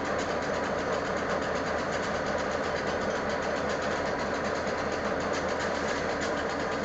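Diesel freight locomotives idling while standing, a steady engine rumble with a fast, even throb. The crew is probably charging the cars' air brakes at this point.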